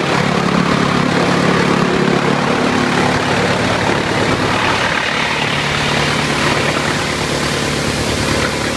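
Wood chipper machine running loudly and steadily, its engine hum over a broad rushing noise; the engine note drops slightly about five seconds in.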